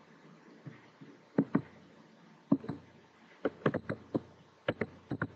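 Computer keyboard and mouse clicks close to the microphone: two pairs of separate clicks, then a quick run of keystrokes in the second half.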